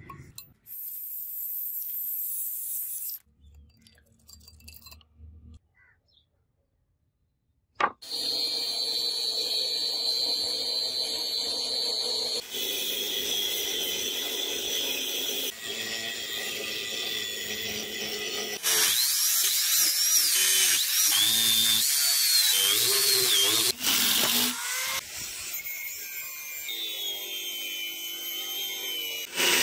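Angle grinder with an abrasive cutting disc cutting through forged steel, running loud and steady from about eight seconds in, its whine wavering in pitch as the disc bites. Before it come a few faint clinks and a short spell of near silence.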